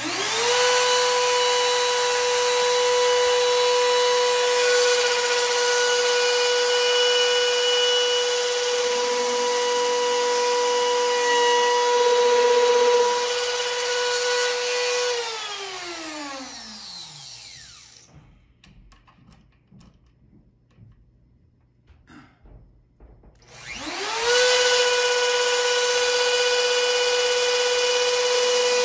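Router in a binding-channel jig switched on and spinning up to a steady high whine, cutting a test cut in the edge of a guitar top. About halfway it is switched off and winds down to quiet, then a few seconds later it is started again and runs steadily.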